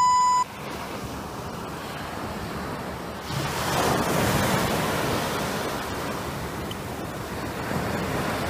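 Small surf washing onto a sandy beach, a wave swelling about three seconds in. A short electronic beep at the very start.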